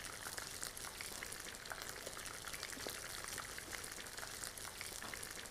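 Oil sizzling and crackling in a frying pan as breaded croquettes shallow-fry: a steady hiss full of small pops.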